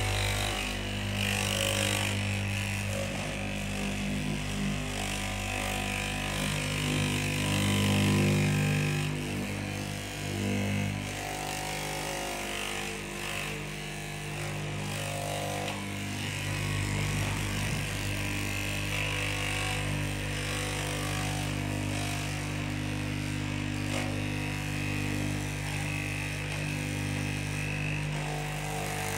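Electric straight-knife cloth-cutting machine running steadily, its upright reciprocating blade cutting through a stacked lay of fabric.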